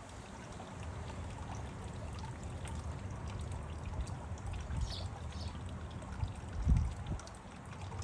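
Terracotta fountain birdbath running steadily, water bubbling from its top and trickling down into the basin, with a bird's wings splashing in the water about halfway through. A low bump about seven seconds in is the loudest sound.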